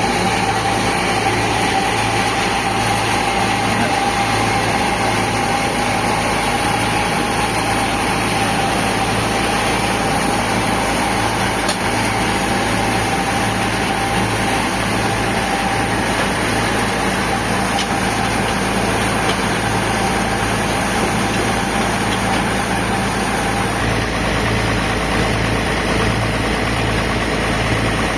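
Band sawmill machinery running steadily: a continuous loud machine noise with a steady whine and a low, evenly pulsing hum.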